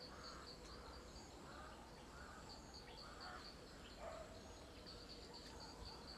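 Faint forest ambience: a bird repeats a short rising-and-falling call about twice a second for the first few seconds, over a quick, high chirping that comes and goes.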